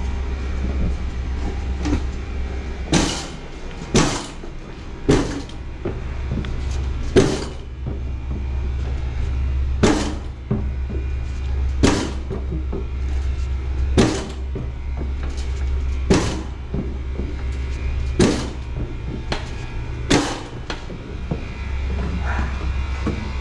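A drum-type drain cleaning machine being pulled up a flight of stairs, knocking against each step about every two seconds, over a steady low hum.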